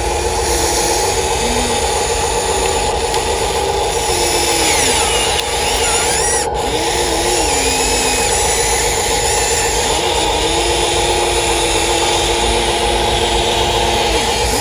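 Radio-controlled model excavator's electric motors and hydraulic pump whining without a break. A steady high whine runs under lower tones that slide up and down and hold.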